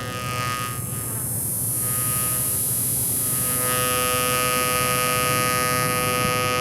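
Modular synthesizer playing a sustained, buzzing drone: a dense stack of steady tones over a bright hiss, with new held tones coming in partway through.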